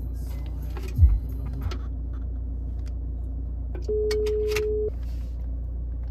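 Phone ringback tone from a smartphone on speaker: one steady one-second tone about four seconds in, the European call-ringing signal that means the other phone is ringing. Under it the low steady rumble of a car engine idling, heard inside the cabin, with a low thump about a second in.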